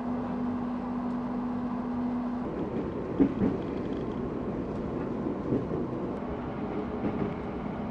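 Train running: a steady rumble with a low hum that stops about two and a half seconds in, then a few knocks over the rumble.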